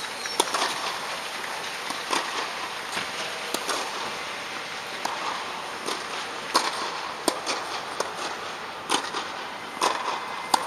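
Tennis balls struck by rackets and bouncing on the court during rallies: a string of sharp pops, roughly one every second, some louder and closer than others.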